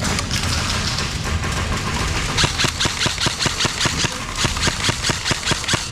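Airsoft gun firing a rapid, evenly spaced string of shots, about seven a second, starting a little over two seconds in, over a steady low rumble and hiss.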